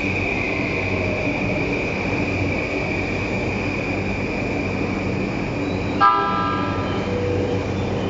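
Standing E235 series electric train running with a steady hum, then about six seconds in a short horn toot of about a second as it sets off from the platform.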